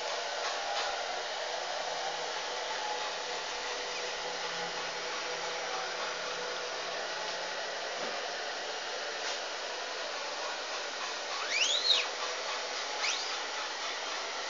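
Steady blowing of an electric hair dryer, with a few short high chirps near the end.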